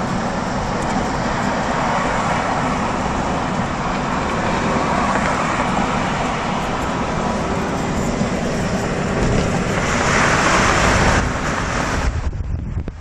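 Steady road and tyre noise of a car driving at freeway speed, heard from inside the car. It swells louder about ten seconds in, then drops away sharply near the end.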